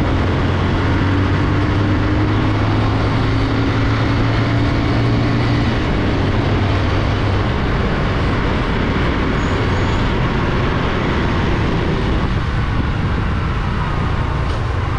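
Bajaj Boxer 150's single-cylinder engine pulling the motorcycle along under throttle, running on the last of its fuel, with steady wind rush on the microphone. The engine note fades about halfway through, leaving mostly wind and road noise.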